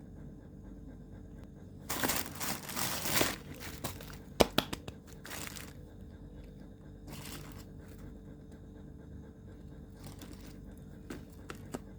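Packaging being crinkled and torn open by hand in several short bursts, with a sharp click a little before the middle and small ticks near the end.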